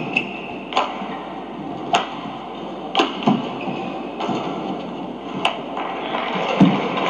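Badminton rally: racquets striking the shuttlecock in about four sharp hits, roughly a second apart, with a couple of duller thuds from the players' footwork on the court.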